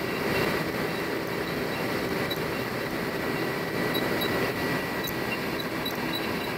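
Milling machine running a boring head, finish-cutting the internal bore of a metal part: a steady machine noise with a thin, steady whine.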